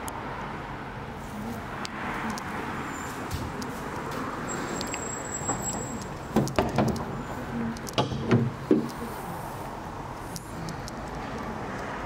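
Mercedes-Benz C220 bonnet being released and lifted: a cluster of sharp clunks from the catch about six seconds in, then another run of clunks about eight seconds in as the bonnet comes up, over a steady background hum.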